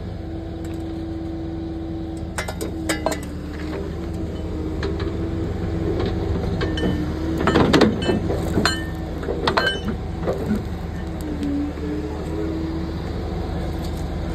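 Mini excavator running steadily, its engine and hydraulics giving a low hum with a held tone that shifts in pitch as the arm moves. The steel bucket scrapes and clinks against dirt and stones a few times while digging, loudest about halfway through as it bites into the trench.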